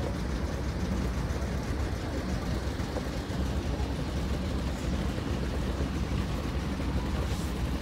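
Steady low engine rumble with an even hum, unchanging throughout.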